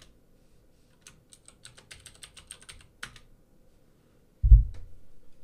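Typing on a computer keyboard: a quick run of key clicks, ending in a harder keystroke about three seconds in. About a second and a half later comes a single low thump, the loudest sound, then one more click.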